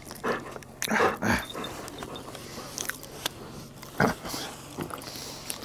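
A dog eating, with irregular wet chewing and biting noises, a cluster of them about a second in and another near four seconds.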